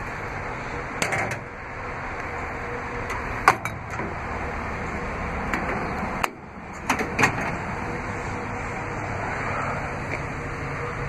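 Metal latches and doors of a truck's steel utility-body compartments being worked: a handful of sharp clicks and clanks, the loudest about three and a half seconds in, over steady background noise.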